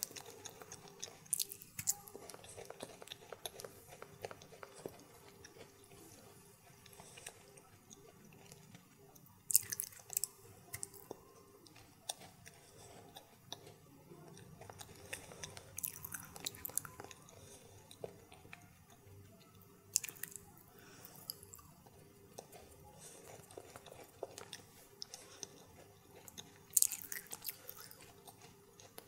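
Faint, close-miked chewing and mouth sounds of a person eating Indian sweets, with a few sharper clicks several seconds apart.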